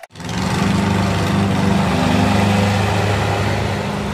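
Riding lawn mower's small engine running at a steady speed, coming in abruptly just after the start.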